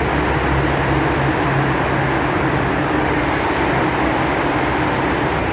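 Steady traffic noise inside a road tunnel: cars passing on the road, with a low steady hum underneath.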